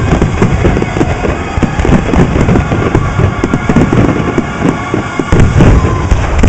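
Dense barrage of aerial fireworks shells bursting in rapid succession, an unbroken string of bangs and crackles with a heavier cluster of booms about five and a half seconds in.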